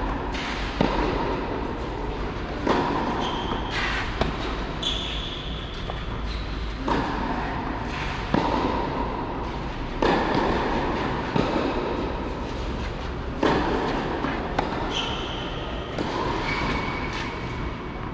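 Tennis rally: the ball struck back and forth by rackets, a sharp hit about every one and a half to two seconds, echoing in a large covered hall over a steady low hum.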